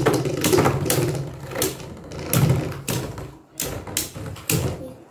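Two Beyblade Burst spinning tops, Master Diabolos and Genesis, battling in a plastic Beyblade stadium: an irregular run of sharp clacks as the metal-and-plastic tops strike each other and the bowl wall while they spin.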